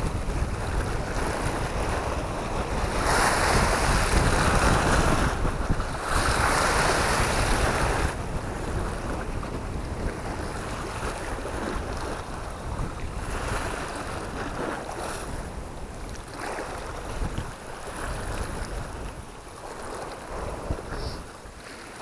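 Sea waves washing against shore rocks, with wind buffeting the microphone. Two louder surges of surf come a few seconds in.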